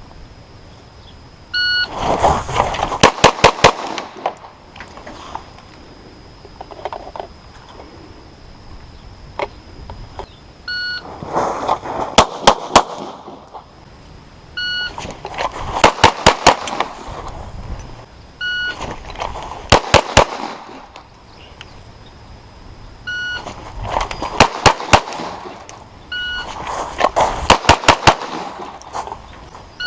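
Glock 34 9mm pistol fired in quick strings of about three to six shots, five strings in all. Each string follows a short electronic beep, the start signal of a shot timer, by about one to two seconds.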